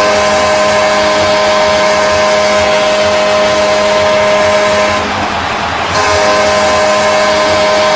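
Pittsburgh Penguins arena goal horn blaring: a long, steady, loud blast that breaks off for about a second around five seconds in, then sounds again.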